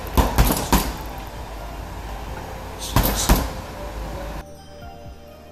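Boxing gloves punching a heavy bag: a quick flurry of thuds at the start, then two more about three seconds in, over a steady hiss of room noise. The sound drops suddenly to a much quieter background near the end.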